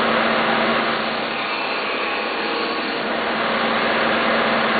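Combination belt and disc sander running: steady whir of its motor, spinning disc and moving belt, with a low hum that drops away about a second in.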